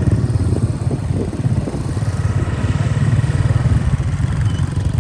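Motor vehicle engine running steadily under way, with road and wind noise.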